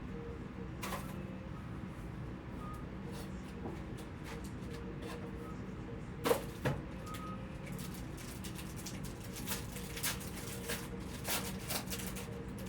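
Trading-card boxes and pack wrappers being handled and opened: scattered crinkles and sharp clicks, thickest in the second half, over a steady low hum.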